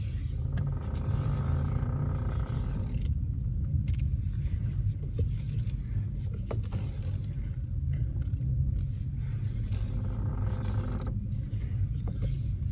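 Peugeot RCZ R cabin with a steady low rumble. Twice, a mid-pitched groaning noise comes from the steering as the wheel is turned: from about half a second to three seconds in, and again about ten seconds in. The owner considers this noise not normal.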